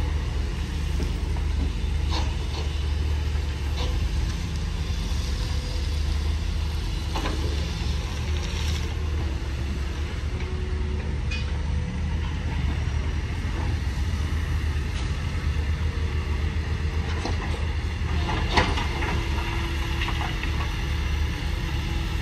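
Heavy diesel machinery running steadily at idle, a low even drone, with a few short knocks; the sharpest comes near the end.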